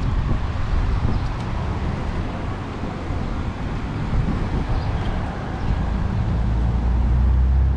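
Road traffic: cars driving past on a multi-lane city avenue, a steady rush of tyres and engines, with a deeper low rumble swelling in the last couple of seconds.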